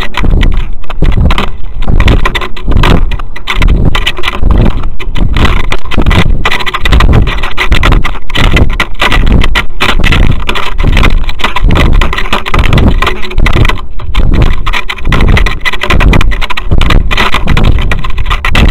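Wind buffeting the microphone of a model rocket's onboard camera during descent: a loud, gusty rushing with irregular rapid pulses, heaviest in the low end.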